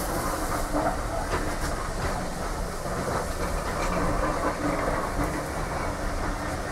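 Great Western steam railmotor No. 93 under way, heard from on board: a steady rumble of the carriage with wheels clicking over the rail joints.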